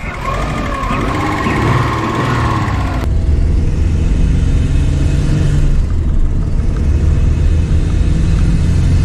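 Subaru EJ205 turbocharged 2.0 L flat-four engine revved in the engine bay, its pitch rising and falling. After a cut about three seconds in, the same engine is heard from inside the cabin as a steady low drone while the car cruises.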